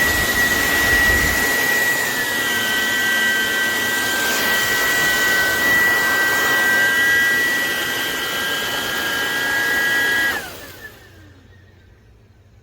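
Hoover ONEPWR WindTunnel Emerge cordless stick vacuum running with a steady high whine over a rush of air, then switched off about ten seconds in, its whine falling as the motor spins down.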